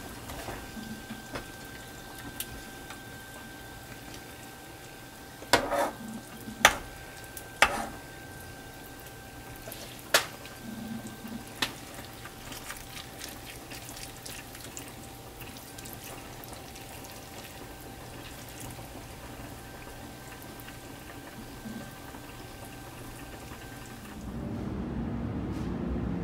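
Stew bubbling and simmering in a pot on the stove, with a metal spoon clinking sharply against the pot and a ceramic rice bowl about five times as stew is ladled over rice. Near the end it gives way to a low outdoor traffic rumble.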